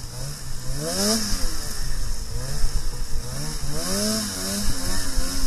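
Snowmobile engine revving up and down under the throttle, its pitch climbing sharply about a second in and again near four seconds, over a steady hiss.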